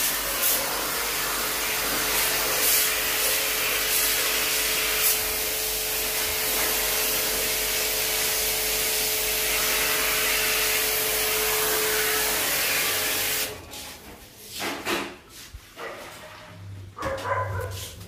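High-pressure water jet spraying the coil of a split air conditioner's indoor unit inside a cleaning bag: a steady hiss with a faint pump hum, cutting off suddenly about three-quarters of the way through. After it stops, a few knocks and handling sounds.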